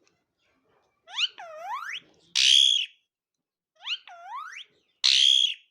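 Pet parrot giving a whistled swoop that dips and then rises, followed by a loud harsh squawk. The pair comes twice.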